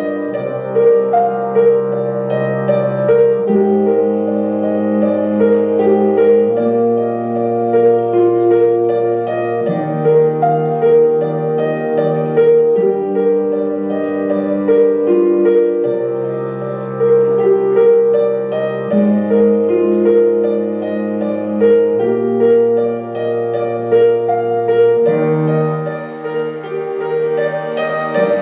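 Slow piano music: a repeating note figure over held bass chords that change about every three seconds.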